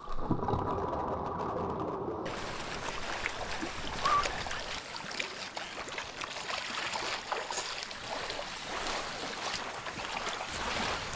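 Muffled underwater water noise for about two seconds, then sea water splashing and dripping as a wet fishing net is hauled out of the sea over the side of a wooden pirogue.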